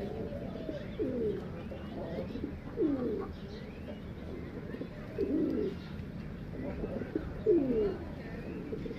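Pigeons cooing, several at once, with a louder low coo every two seconds or so and faint high chirps beneath.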